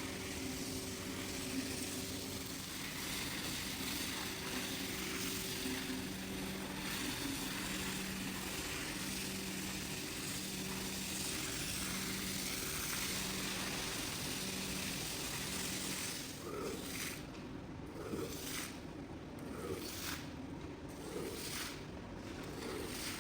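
Rug-cleaning equipment at work on a wet carpet: a steady hiss of water spray over a low machine hum. About sixteen seconds in this gives way to repeated strokes roughly every second and a half.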